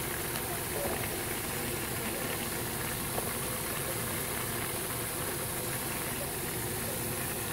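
Rice simmering in a pan of water on a gas stove, over a steady machine-like hum.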